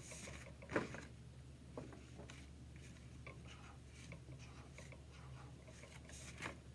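Felt-tip marker drawing small circles on construction paper: faint, short scratching strokes, with one sharp tap about a second in.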